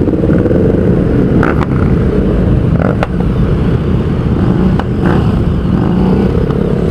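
Motorcycle engines running steadily in slow, crowded traffic, with a few short clicks.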